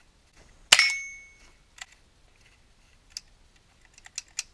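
A single shot from an AR-style rifle with a brief metallic ring, followed by a few sharp metallic clicks as the rifle is handled, with a quick run of three near the end.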